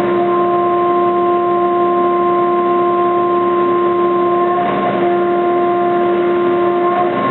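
CNC milling machine cutting aluminium at a 2 mm depth of cut and high table feed: a loud, steady pitched whine from the cutter over a noisy hiss, wavering briefly about four and a half seconds in.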